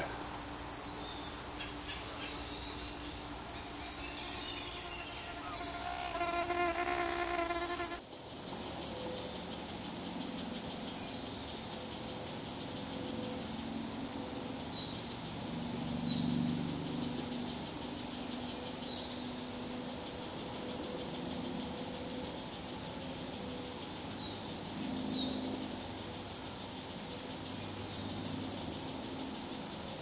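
Steady, high-pitched insect chorus. About eight seconds in it briefly dips and then carries on slightly lower in pitch.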